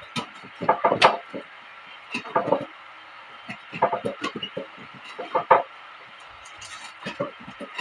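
Cardboard box and packing being handled and pulled open by hand: irregular clusters of rustling, scraping and light knocks every second or so, with short pauses between them.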